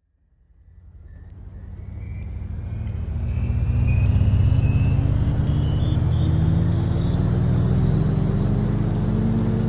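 A deep rumbling drone fades in from silence over the first few seconds, then holds loud while its pitch rises slowly and steadily.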